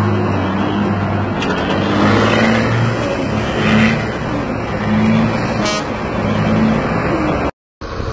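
Heavy diesel truck engine running under way, a steady low drone, with short horn toots partway through. The sound drops out for a moment near the end.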